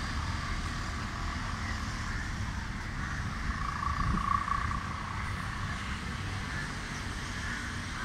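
Steady hum of distant motor traffic, with one vehicle's engine tone swelling louder about four seconds in.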